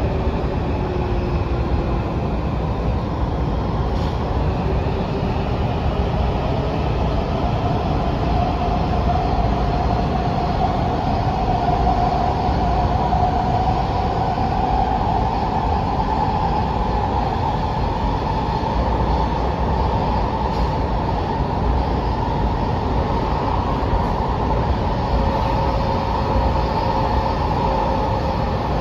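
Interior running noise of a Washington Metro 6000-series railcar under way: a steady rumble with hiss. Over it a whine rises in pitch for a few seconds, holds and fades, and a lower steady whine comes in near the end.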